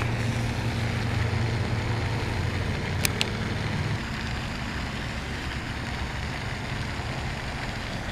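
Steady wind noise on the camera microphone with a low rumble, by a pond, with two light clicks in quick succession about three seconds in.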